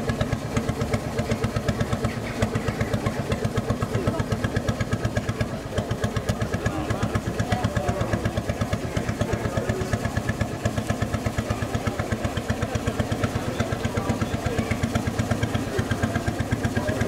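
Engine of the loaded historic motor narrowboat Kangaroo, running slowly under way with a steady, even beat of several thumps a second.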